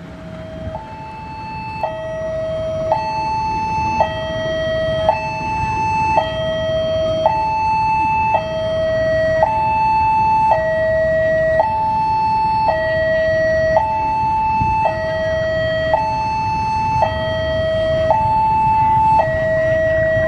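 Railway level-crossing warning alarm sounding a two-tone high-low electronic signal, switching pitch about once a second. Under it, a low rumble grows steadily louder as the train approaches.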